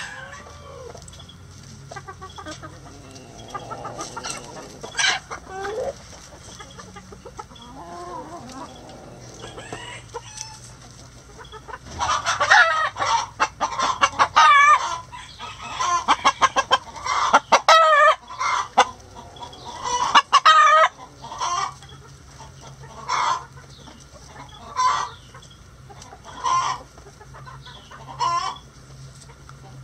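A flock of chickens clucking and calling while they feed. The calling is soft at first, then turns loud and crowded about halfway through, and ends in a run of short separate calls every second or so.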